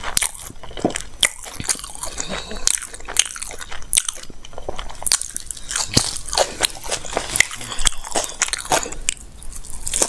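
A person chewing and biting food close to the microphone, with irregular wet clicks and crunches throughout.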